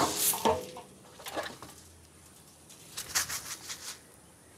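Scattered rattles and scrapes of freshly roasted coffee beans being handled at a hand-cranked drum roaster, loudest in the first second and again about three seconds in, then dying away.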